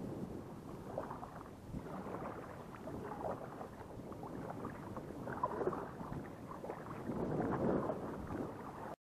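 Kayak paddle strokes: a double-bladed paddle dipping into the sea and pulling through the water, swelling about every two seconds.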